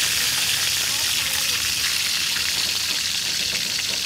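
Whole fish frying in hot oil in a metal wok: a steady sizzle with fine crackling.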